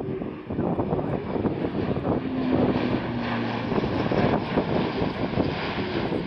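Airbus A400M Atlas's four turboprop engines and propellers running steadily as it flies a banking pass overhead. A low steady hum stands out from about two seconds in for a second or so.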